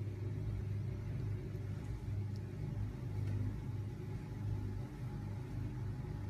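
A kitten purring: a low, steady rumble that swells and eases every second or so.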